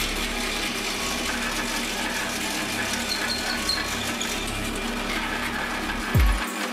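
Drill press running, its twist bit boring steadily into a plywood block held in a vise. Near the end comes a short, deep thump.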